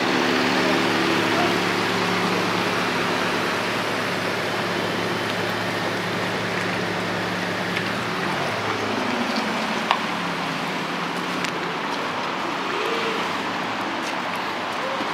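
Steady street background noise of traffic, with a low engine-like hum for the first half that stops about halfway through. A single sharp click comes a little later.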